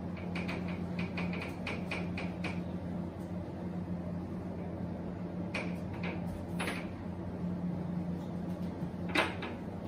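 Whiteboard duster rubbing marker off a whiteboard: a quick run of short back-and-forth wiping strokes, then a few single wipes, the last one near the end the loudest.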